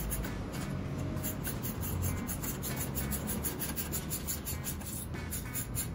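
Stainless steel exhaust pipe rubbing and scraping against the joint as it is worked into place by hand.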